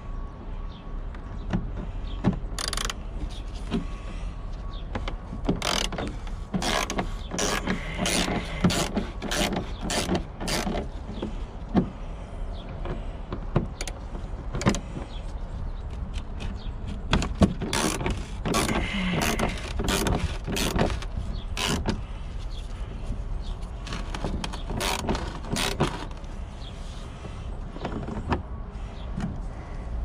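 Hand ratchet with a socket working fasteners: runs of sharp clicks and knocks, busiest about six to eleven seconds in and again about seventeen to twenty-two seconds in, over a steady low rumble.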